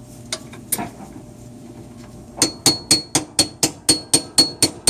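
Hammer tapping on a socket to drive a new washing machine motor coupler half onto its shaft. The strikes come in a quick steady run of about four a second, starting about halfway through, each with a short metallic ring.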